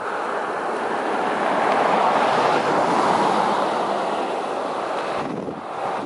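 A gust of wind: a steady rushing noise that swells over the first few seconds and drops away near the end.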